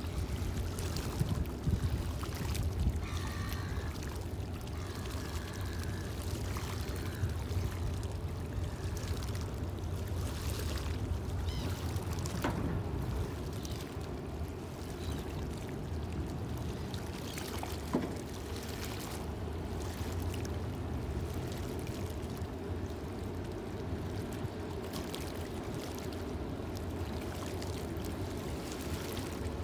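Steady low rumble of a high-speed passenger ferry's engines as it passes offshore, mixed with a steady wash of water.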